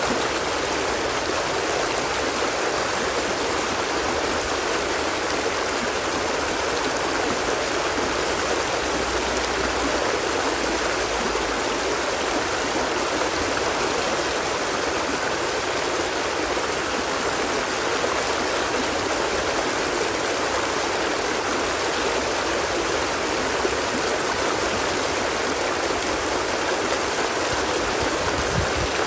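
Stream water flowing steadily, an even, unbroken wash of water noise.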